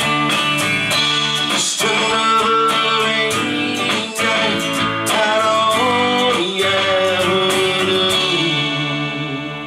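Country-flavoured song: an electric guitar strummed while a man sings. Near the end the last chord rings out and fades.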